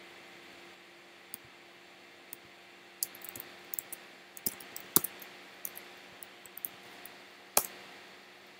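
Typing on a computer keyboard: irregular keystroke clicks in quick runs, with sharper clicks about five and seven and a half seconds in, over a faint steady hum.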